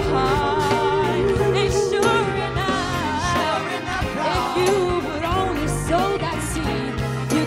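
A live band plays a song while a woman sings the lead melody, with backing singers, drums, electric guitar and bass behind her.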